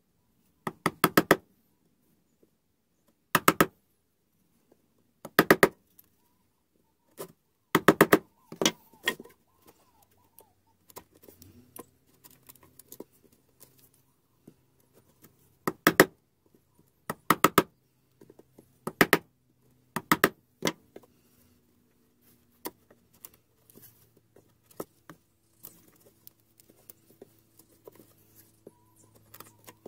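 A wood chisel being struck to chop out the corner of a pine frame, in quick bunches of two to five sharp knocks every couple of seconds. After about 21 seconds the knocks stop and only light ticks and scraping of the chisel paring by hand remain.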